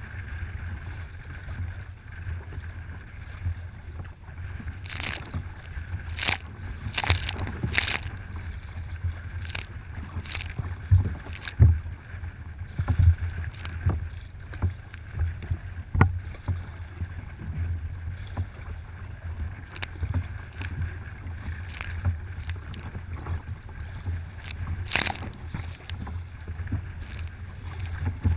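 Choppy waves slapping and splashing against a kayak's bow, with irregular sharp splashes, several close together about five to eight seconds in and another near the end. Under them runs a steady low rumble of wind on the microphone.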